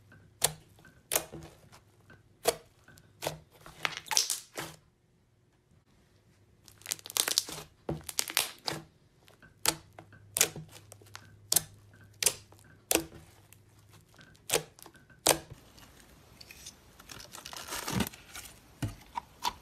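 Slime being pressed and squeezed by hand: sharp, sticky pops and clicks about once a second, with short bursts of crackling in between. Near the end a longer run of crackling as jelly slime is stretched.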